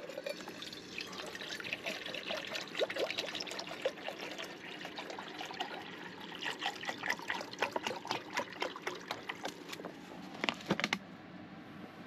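Water pouring from a large plastic bottle into a stainless steel pot, a stream of uneven splashes that stops about a second before the end.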